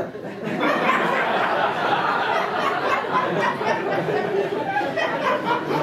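Audience laughing together, a sustained wave of crowd laughter that swells about half a second in and holds at a steady level.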